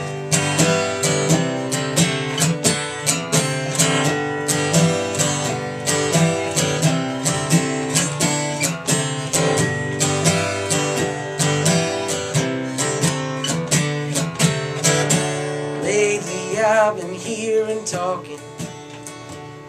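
Acoustic guitar strummed in a steady rhythm, an instrumental break between verses of a live song; the strumming thins and grows quieter near the end.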